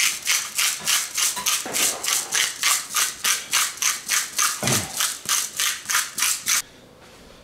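Hand-twisted pepper grinder grinding peppercorns: a quick, even rasping crackle, about four or five strokes a second, which stops abruptly near the end.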